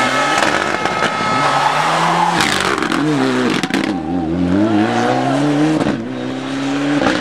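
Mitsubishi Lancer Evolution rally car's turbocharged four-cylinder engine revving hard as the car slides through a loose-surfaced hairpin. The revs drop a couple of seconds in, then swing up and down before holding steady again near the end, over the noise of tyres on gravel.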